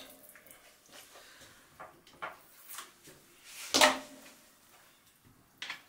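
A few short knocks and clicks of a kitchen knife against a plastic cutting board, the loudest about four seconds in.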